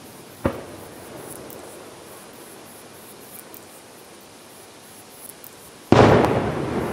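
Aerial fireworks: a single short crack about half a second in, then faint steady hiss, and near the end the loud boom of a firework shell going off, with a long echoing tail.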